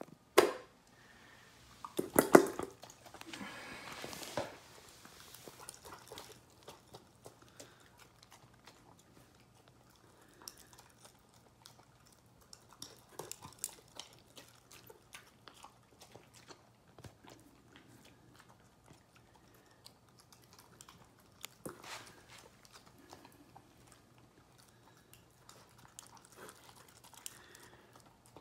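Dog eating dry kibble from a stainless steel bowl: scattered crunching and chewing. Two loud clatters come in the first few seconds.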